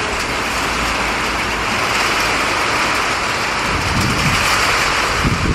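Hail and rain falling on the stone platform paving, a dense, steady noise, with two short low rumbles near the end.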